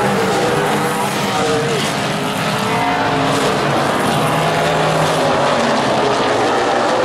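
Super late model stock cars running on a short oval, their V8 engines loud and steady, several engine notes overlapping and shifting a little in pitch.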